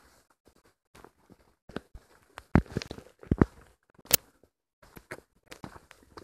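Footsteps on a rocky stone trail: uneven steps and scuffs with sharp clicks of stone underfoot, the loudest a few heavy steps about two and a half to three and a half seconds in.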